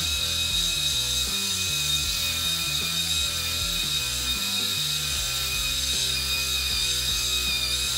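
Pitbull Gold Pro four-head rotary head shaver running with a steady high whine as it is passed over a shaved scalp, cutting stubble. Background music plays underneath.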